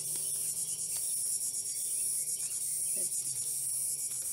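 Steady high-pitched insect chorus, with a faint low hum underneath.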